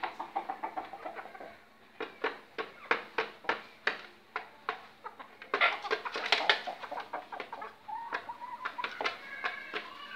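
Hens in a wire cage clucking, over a run of many quick, sharp taps that come irregularly and are thickest in the middle.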